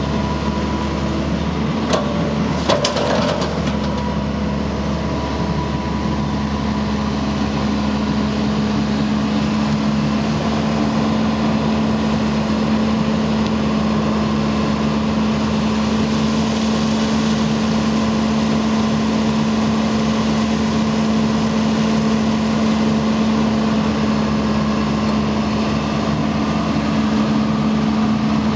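John Deere excavator's diesel engine running steadily with a constant hum, with a few sharp clicks about two to three seconds in.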